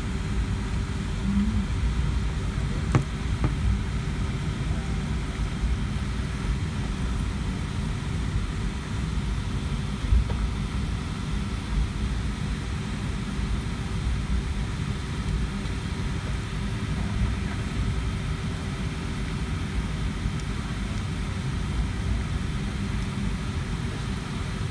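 Cabin noise of a Boeing 757-200 taxiing: a steady low rumble from the jet engines and airframe with a constant hum over it. A few light knocks come about three seconds in and again at about ten seconds.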